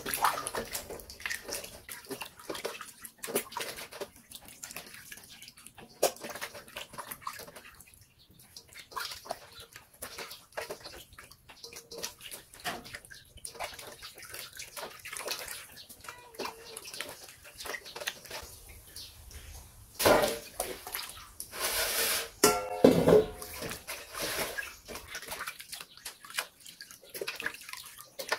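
Hands washing chopped raw pork in a stainless steel bowl of water: irregular sloshing, squelching and splashing, louder for a few seconds a little over two-thirds of the way through.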